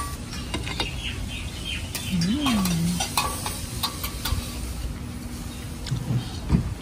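Food sizzling on a hot teppanyaki griddle, with a metal spatula and tongs clicking and scraping irregularly against the steel plate as sliced vegetables and seafood are turned and lifted.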